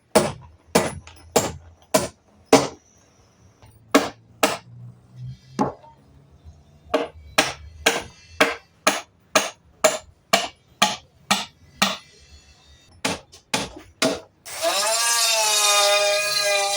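A hammer striking wood in a steady series of sharp blows, roughly two a second with a few short pauses. Near the end a power tool starts up, rising briefly in pitch, and runs steadily.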